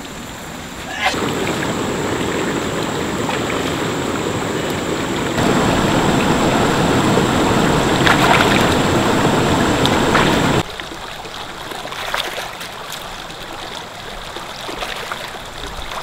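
Shallow river water running over rocks, with hands splashing in the current while washing meat in a bowl. The rush is loudest through the middle and drops abruptly to a quieter flow about ten and a half seconds in.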